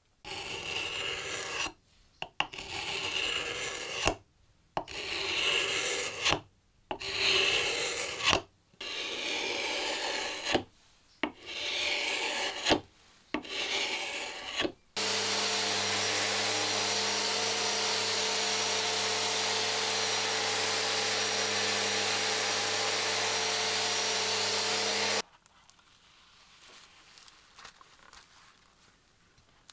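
A hand paint scraper drawn along a wooden piano-stool part, scraping off the old finish in about seven long passes with short pauses between them. This is followed by a steady, even mechanical hum-and-hiss for about ten seconds that stops abruptly.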